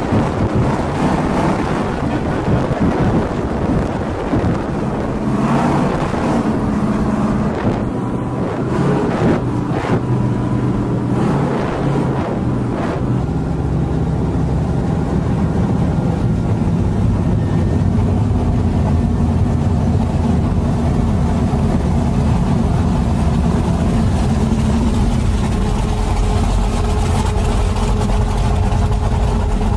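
An engine running, its hum wavering in pitch during the first half and then holding steady.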